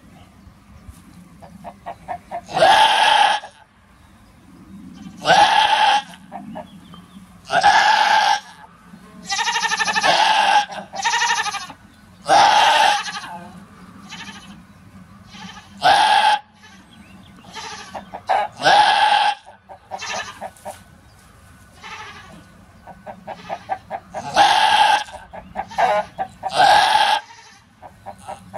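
A doe goat in labour bleating loudly again and again as she strains to push out a kid: about ten cries, most under a second long and one longer, wavering one, with fainter quick sounds between them.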